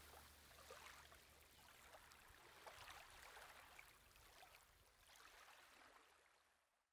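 Faint running water, a small stream trickling and gurgling, fading out to silence near the end.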